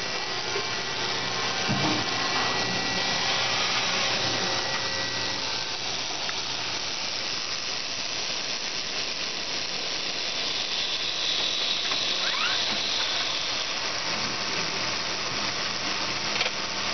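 CNC machining center running as its cycle starts: a steady whir and hiss with faint whining tones, a knock about two seconds in, and a short rising whine about three quarters of the way through.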